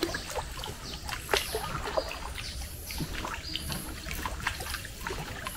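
Small boat drifting on a still forest creek: scattered light knocks and water drips, with a faint high-pitched bird or insect call repeating about once a second.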